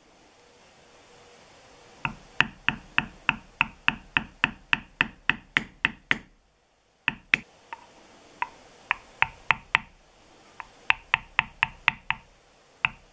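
Mallet tapping a metal bevelling stamp on leather laid over a marble slab, chamfering the edges of a tooled picture. Quick, even taps about three a second, a short break a little after six seconds in, then more taps with uneven gaps.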